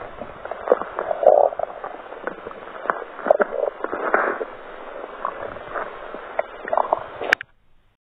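Human stomach gurgling and rumbling: irregular, squelchy gurgles mixed with sharp little clicks, cutting off suddenly near the end.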